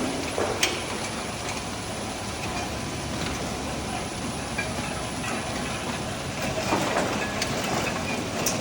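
Zorel ZRM36 egg grading and packing machine running: a steady mechanical clatter with a few sharper clicks, one under a second in and one near the end.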